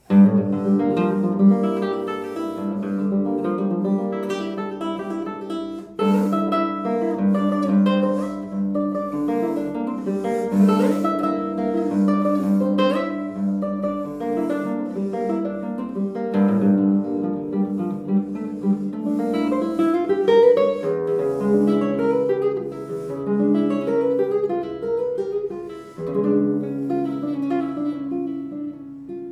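Nylon-string classical guitar played solo, fingerpicked notes and ringing chords. It opens with a loud struck chord after a brief hush, with another strong accent about six seconds in.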